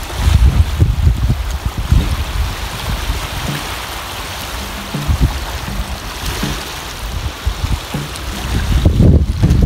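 Small waves washing and lapping over a pebbly, rocky shore, with wind buffeting the microphone in low gusts, strongest at the start and again near the end.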